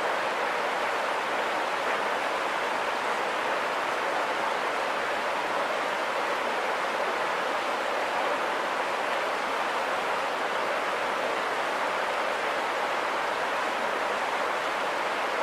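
Shallow river rapids rushing over rocks, a steady, unbroken sound of running water.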